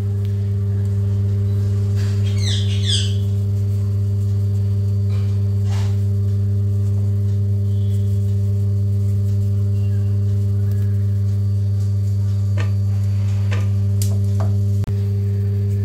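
Steady low electrical hum with a stack of overtones, unchanging throughout. A brief high chirping comes about two to three seconds in.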